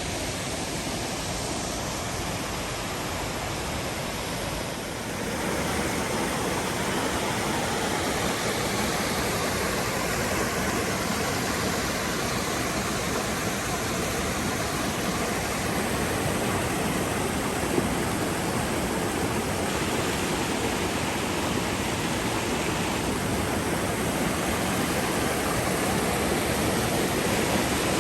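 Waterfall: a steady rush of falling water, growing a little louder about five seconds in.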